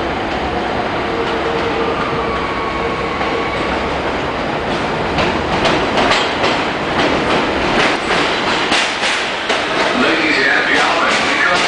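R160B subway train with Siemens propulsion pulling into an elevated station. A steady rumble with a faint whine gives way, after about five seconds, to wheels clacking over the rail joints, louder and more frequent as the cars come alongside.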